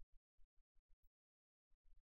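Near silence, broken by a string of very brief, faint crackles.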